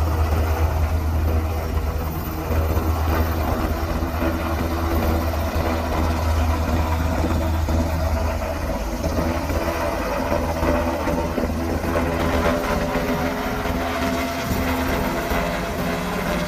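UH-60 Black Hawk helicopter hovering low over water, its rotors and turbine engines running with a steady deep drone while its long-line bucket fills. It then climbs away with the load.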